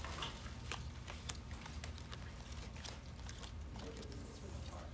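Small paper cards being handled and set down on a tabletop: scattered light clicks and rustles over a steady low room hum.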